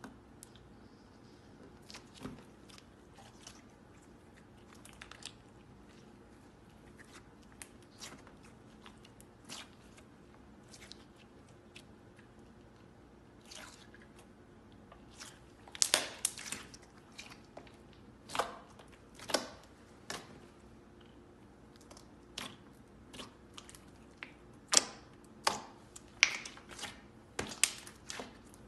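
Thick green slime with dark beads in it being squeezed and kneaded by hand: irregular wet clicks and pops as it is pressed and pulled. The clicks are sparse and soft at first, then louder and more frequent from about halfway through.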